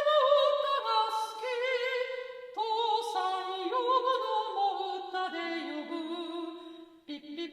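A high voice singing a cappella in held, stepwise notes with vibrato, growing quieter toward the end.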